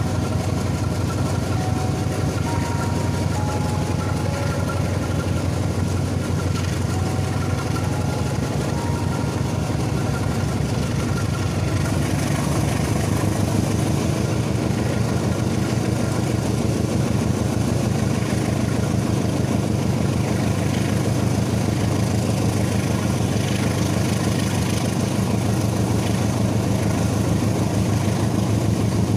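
Steady running noise of the Matarmaja passenger train heard from a coach window as it moves along the tracks: a continuous low rumble of wheels and engine. A faint thin high tone drops out about twelve seconds in, and the rumble then grows slightly louder.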